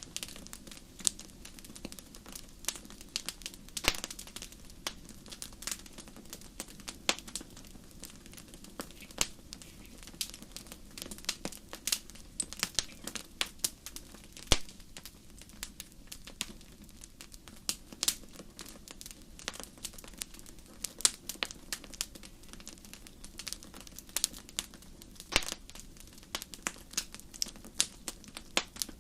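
A fire crackling, with many irregular sharp pops and snaps over a low steady background.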